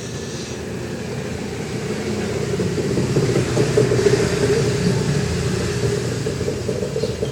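A person snoring: a low, rattling snore that grows louder toward the middle and then eases off.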